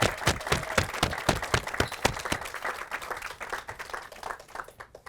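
An audience applauding, the clapping dense at first and dying away near the end.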